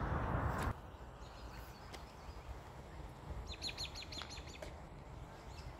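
A small bird sings a quick run of about seven high, falling chirps around the middle, over faint outdoor background noise. A loud rushing noise at the start cuts off abruptly under a second in.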